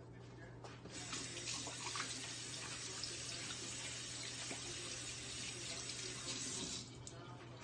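Kitchen tap running for about six seconds: the water comes on about a second in and is shut off near the end.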